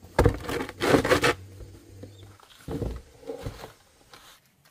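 Wet mortar sliding and slopping out of a rubber tub, scraping against the tub, followed by a few shorter scrapes.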